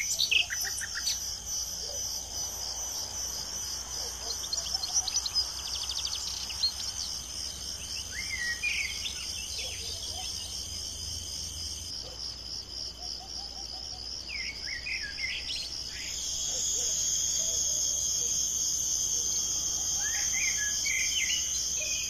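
Insects, cricket-like, trilling in a steady, rapidly pulsing high chorus, with scattered short bird chirps. About two-thirds of the way through, a steadier high-pitched buzz joins the trill.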